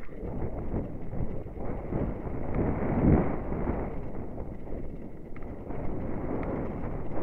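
Downhill mountain bike rattling over a rocky, stony singletrack at speed: tyres rumbling and clattering on loose stones and the bike knocking, mixed with wind buffeting the helmet camera's microphone. The clatter is loudest about three seconds in.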